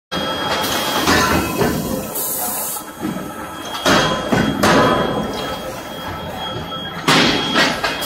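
Medium-frequency induction forging furnace running with a steady high-pitched whine, under irregular knocks and thuds.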